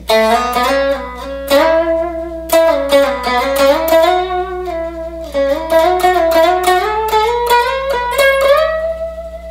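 Telecaster-style electric guitar, played through an amp, picking a melodic lick in A major pentatonic, with notes sliding up and down in pitch between the picked attacks.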